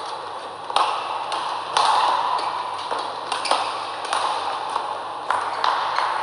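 Badminton rally: rackets striking a shuttlecock back and forth, sharp cracks roughly two a second over a steady hall background.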